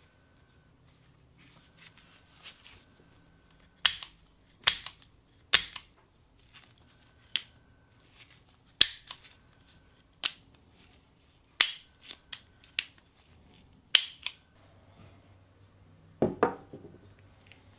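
Restored antique Bulldog pocket revolver's mechanism being worked by hand: about ten sharp metallic clicks, irregularly spaced roughly a second apart. Near the end, a duller knock as the revolver is set down on the wooden workbench.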